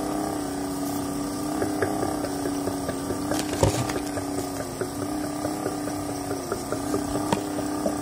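Homemade CD-disk air washer running: its small 12 V gear motor and fan hum steadily while the disk stack turns through the water reservoir, with a rapid patter of small water plinks and drips. A sharper click comes about three and a half seconds in and again near seven seconds.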